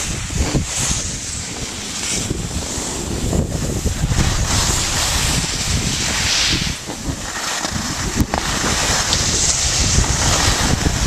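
Wind buffeting the microphone in heavy gusts while skiing downhill, with a hiss of skis sliding on snow that swells and fades through the turns.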